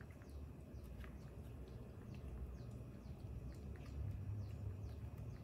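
Faint, high, falling chirps of small birds, several a second, over a steady low background rumble, with one or two small clicks.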